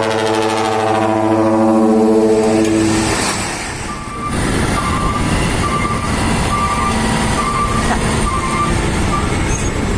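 A dump truck's ship-style air horn blasting a steady multi-note chord for about three seconds. After it cuts off, the truck's engine and tyre noise carries on, with a short high beep repeating.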